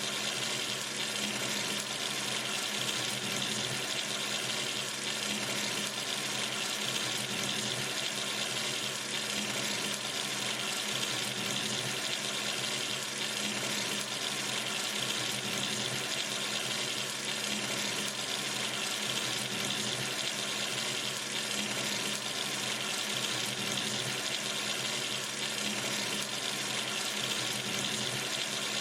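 Water running steadily from a sink tap, an even, unchanging rush of water into the basin.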